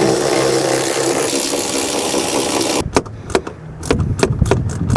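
A loud, steady rushing noise for about three seconds that cuts off abruptly. Then a socket ratchet clicking in quick, uneven strokes as a 13 mm fastener is worked loose.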